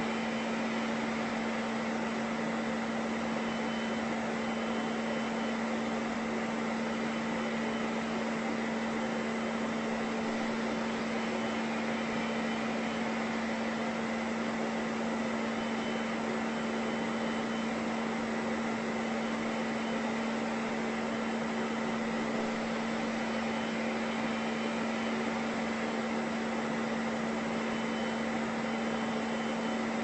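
Steady whir of an electric appliance's motor and fan pushing air, as from a hair dryer or vacuum cleaner run as white noise: an even rush of air over a constant low hum, with a fainter high whine.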